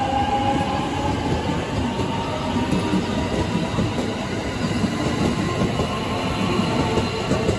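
JR West electric commuter train moving through the station, its electric motor whine rising in pitch through the first second or so as it gathers speed, over a steady rumble and clatter of wheels on rail.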